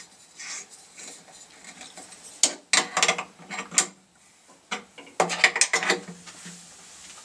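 Ratchet spanner clicking in two short runs of sharp clicks, about two and a half and five seconds in, as a pressure gauge is screwed tight into an air compressor's manifold.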